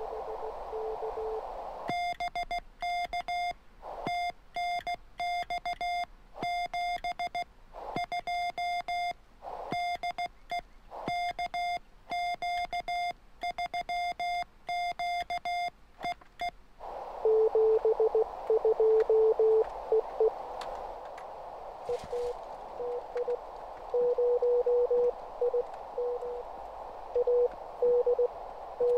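Morse code on a 20-metre ham transceiver: a lower-pitched received CW signal in receiver hiss, then about fifteen seconds of the operator's own keying as a higher, clean sidetone with the receiver muted. After that the hiss comes back and a lower-pitched station keys a reply in Morse.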